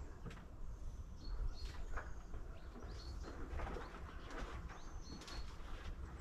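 Small birds chirping with short, high, repeated chirps, over a steady low rumble and a few faint knocks.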